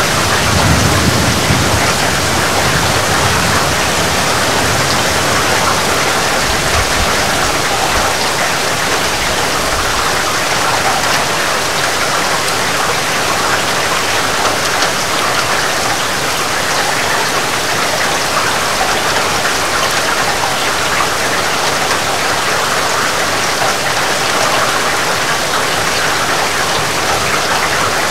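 Heavy rain falling steadily, a dense even hiss of drops on surfaces. A low rumble of distant thunder sounds in the first few seconds and dies away.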